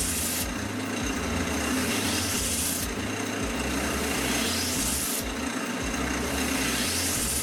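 Wood lathe running steadily with a canvas spinning on it, and a rubbing hiss that rises in pitch three times, about two and a half seconds apart.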